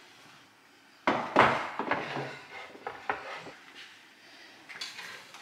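Wooden chopping boards knocking and clattering as they are set down on the countertop and stood against the wall. A loud cluster of knocks comes about a second in, lighter knocks follow, and a few more come near the end.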